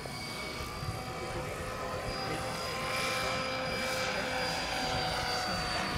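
Electric scale RC Hughes 500 helicopter in flight: a steady whine from its motor and rotors, with several held tones, growing a little louder about halfway through.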